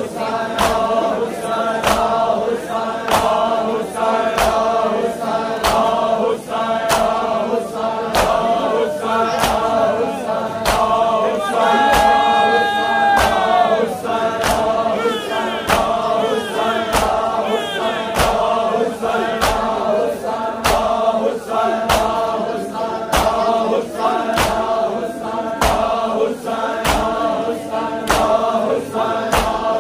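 A crowd of men doing matam, beating their bare chests in unison in a steady slap about every 0.7 seconds, under massed male voices chanting a noha. About twelve seconds in, a high note is held for a second or two.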